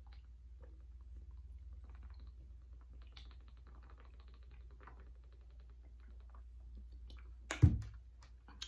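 Drinking from a plastic water bottle: faint swallowing and small crinkling clicks of the plastic, then a single loud thump near the end.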